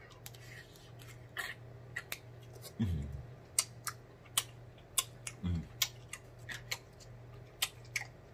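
Close-miked mouth sounds of a man chewing a green-lipped mussel in sauce: wet smacks and clicks, a few a second. There are two low hummed "mm" sounds falling in pitch, about three and five and a half seconds in, over a faint steady hum.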